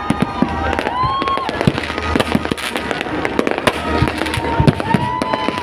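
A fireworks display: many overlapping bangs and crackles, several a second.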